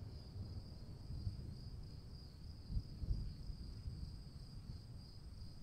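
Faint, steady high-pitched insect trill, like a cricket's, over a low rumble with a couple of soft thumps about three seconds in.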